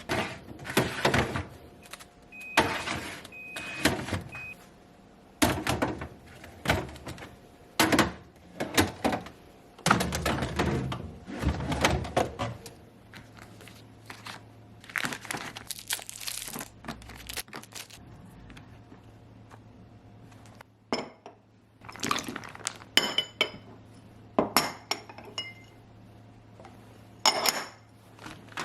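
Household containers and fridge parts being handled, set down and moved: a run of irregular knocks, clatters and short ringing clinks of plastic and glass. A low steady hum comes in about halfway through.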